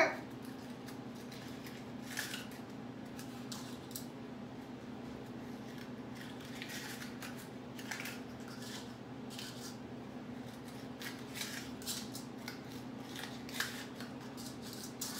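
Paper cupcake liners rustling and crinkling in the hands as they are separated from a stack and set into a muffin pan, in short irregular crackles over a steady low hum.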